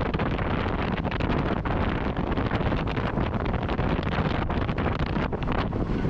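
Steady wind rumble on the microphone of a camera riding along on a bicycle ride.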